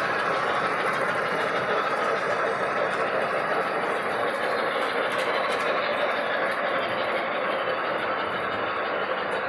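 Model train running on its layout track: a steady whir of motor and wheels on rail, with faint light clicks.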